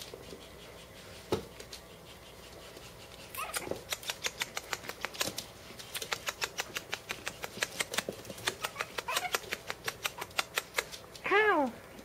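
Shih Tzu dogs, a mother with her tiny puppies, making quick clicking sounds, about three or four a second. Near the end a dog gives one short squeal that rises and falls.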